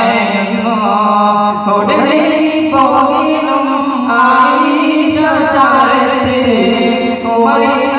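Male voices singing a slow song of an Islamic katha prasangam (sung storytelling) through microphones, in long, wavering held notes.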